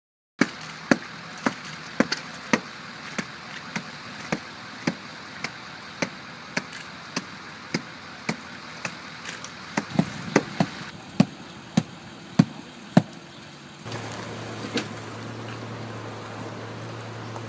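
Repeated sharp knocks, about two a second, of a hand tamper packing cold-patch asphalt into a pothole. About 14 seconds in, a steady low engine hum starts.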